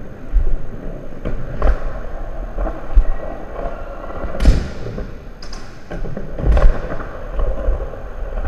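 Skateboard riding: wheels rolling with a steady rumble, broken every second or so by sharp clacks and thuds of the board hitting the ground.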